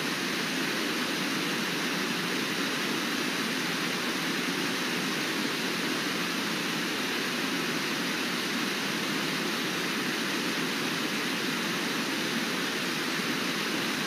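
Steady rushing of river water pouring over a broad, low waterfall, an even noise that does not change.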